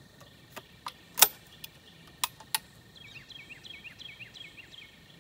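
Several sharp metallic clicks of a break-action single-shot shotgun being handled, the loudest about a second in with a brief ring. Rapid high chirping follows in the last two seconds.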